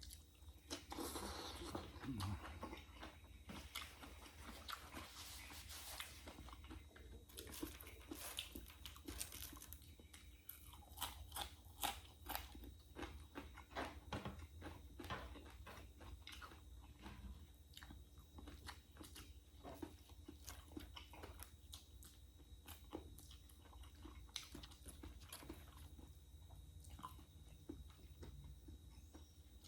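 Close-miked eating: chewing and crunching of crisp fried food, with a dense run of crackly crunches in the middle that thins out towards the end.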